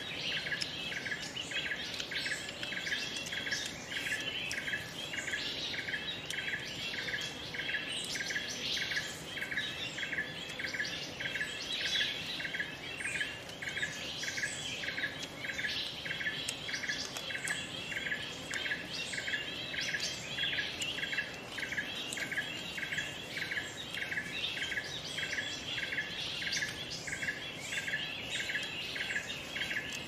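Forest bird calls and chirps over a steady pulsing call that repeats about twice a second without a break.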